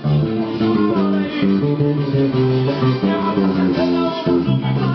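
Electric bass guitar played through a bass combo amp: a steady groove of plucked notes that change pitch several times a second.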